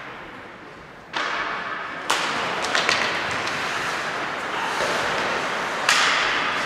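Ice hockey play on the rink: skates scraping on the ice with sharp knocks of sticks and puck, one about two seconds in and another near the end.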